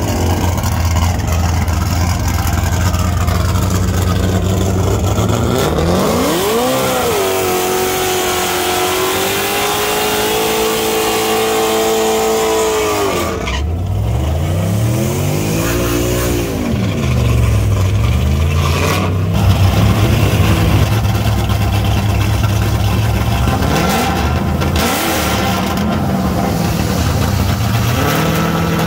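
Naturally aspirated 454-cubic-inch LS V8 in a drag-racing pickup. It runs low at first, then about six seconds in it revs up and holds high rpm for several seconds through a smoky burnout. It then drops back and is revved up and down several times, climbing again near the end.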